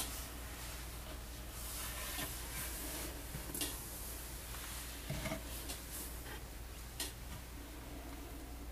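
Quiet room tone: a steady low hum with a few faint clicks and rubbing noises scattered through it.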